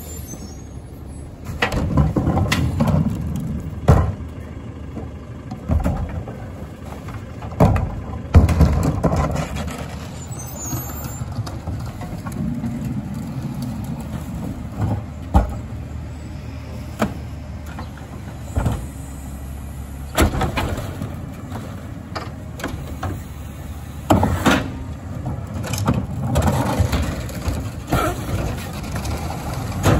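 A CNG-powered McNeilus rear-loader garbage truck running steadily while trash is loaded, with about a dozen irregular bangs and thuds of cans and bags hitting the hopper.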